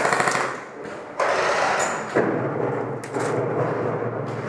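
Airsoft electric gun firing a rapid full-auto burst that stops under a second in, followed by noise with a few sharp knocks.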